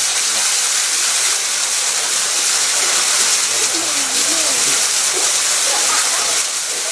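Steady rush of running water, with faint voices in the background a little past the middle.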